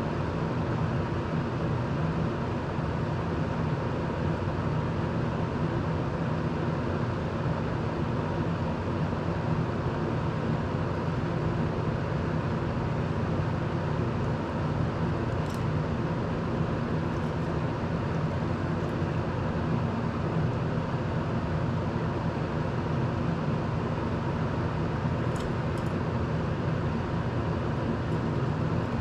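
Desk circulator fan running steadily: a constant whoosh of moving air with a low motor hum, plus a few faint ticks about halfway through and near the end.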